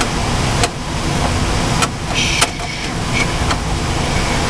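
Steady mechanical running noise of a water source heat pump at work, with a heavy low rumble. Several sharp clicks and knocks from handling the unit's panel and parts break through, with a short hiss a little after two seconds in.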